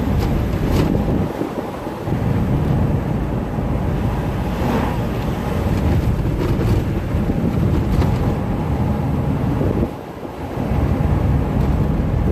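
Road and engine noise of a moving car heard from inside the cabin, with wind on the microphone; the level dips briefly about ten seconds in.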